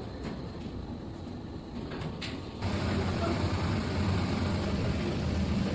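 Machinery running with a steady rumble, a couple of clicks about two seconds in, then becoming suddenly louder and heavier just past halfway.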